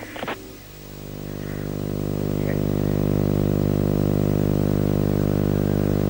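A steady, low buzzing drone with many evenly spaced overtones. It swells up over the first couple of seconds, then holds level.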